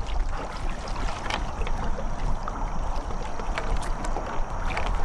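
Lake water splashing and lapping against two kayaks rafted side by side, with scattered small splashes and knocks over a steady low rumble.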